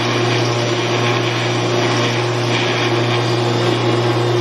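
Homemade 12-inch jointer with a Shelix spiral carbide cutter head running at idle speed: a steady, loud hum with a hiss over it. The owner takes the head to be out of balance.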